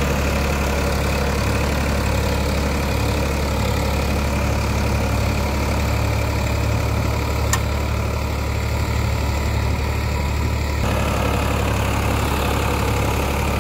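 Farmtrac 45 three-cylinder diesel tractor engine running steadily under load in low gear while pulling a 16-disc harrow through tilled soil. A single short click comes about halfway through.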